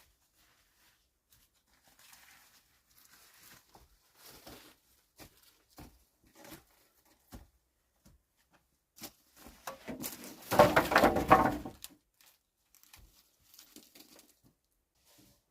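Rustling and crinkling handling sounds with scattered small clicks, rising to a louder, dense crackling rustle for about a second and a half near the two-thirds mark.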